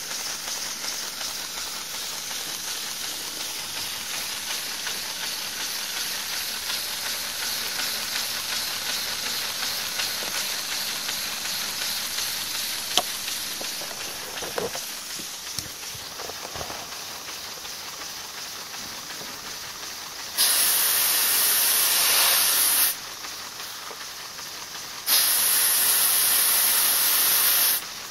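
LEGO pneumatic V8 engine running on compressed air, with a steady hiss of escaping air and a few light clicks midway. Near the end come two loud blasts of rushing air, each about two and a half seconds long.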